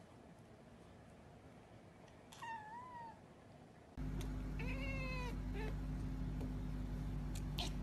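A cat meows once, briefly, with a rising-then-falling pitch about two and a half seconds in. At four seconds a steady low hum begins abruptly, and a cat gives a longer, falling meow about a second later, followed by a few faint clicks near the end.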